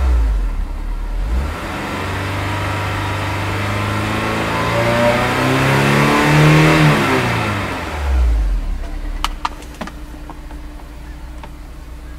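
Honda S2000's 2.0-litre four-cylinder engine revved in neutral, heard from inside the cabin. The revs climb steadily for about five seconds to roughly 4,000 rpm, drop back to idle, and it idles for the last few seconds with a few light clicks.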